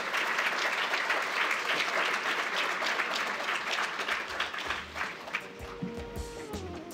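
A large seated audience applauding, the clapping thinning out and fading over the last couple of seconds as music comes in.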